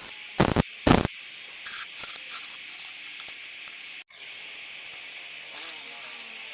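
Two sharp knocks less than a second apart near the start, then a few lighter clicks, over a steady hiss.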